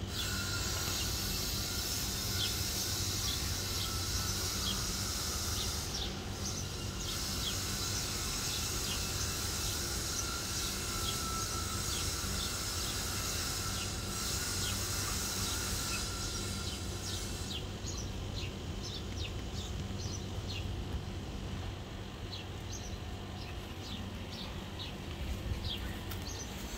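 Outdoor ambience: a steady high insect buzz that stops a little over halfway through, with small birds chirping in short repeated notes throughout, over a faint low hum.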